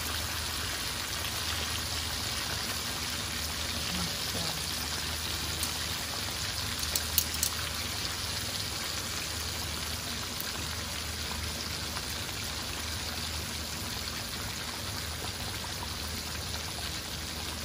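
Breaded chicken pieces deep-frying in hot oil in a pan: a steady, even sizzle. A few sharp clicks sound about seven seconds in.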